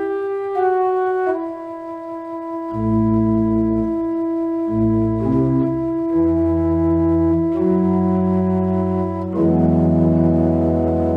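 Organ music: held chords with a moving upper line, a low bass part coming in about three seconds in, and a fuller, louder chord near the end.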